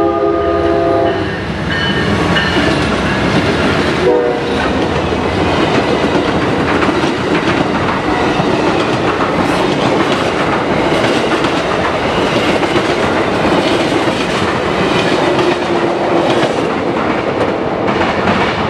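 Amtrak passenger train led by a GE P42DC diesel locomotive sounding its horn chord, which stops about a second in, with a brief horn note near four seconds, then the locomotive and stainless passenger cars rumbling past with wheels clacking over the rail joints.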